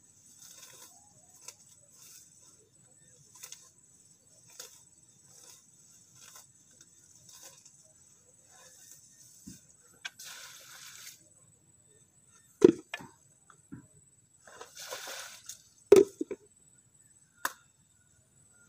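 Grass and weeds being pulled up by hand, a soft rustle and tear about once a second, with longer rustling spells. Two loud sharp knocks come in the second half, the loudest sounds here, over a faint steady high tone.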